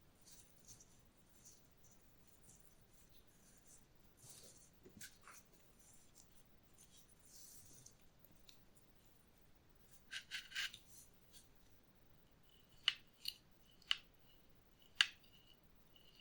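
Restored antique Austro-Hungarian wire cutters being worked: faint handling rustles, a quick cluster of clicks about ten seconds in, then four sharp metallic clicks from the closing jaws in the last few seconds, with a faint ring after them.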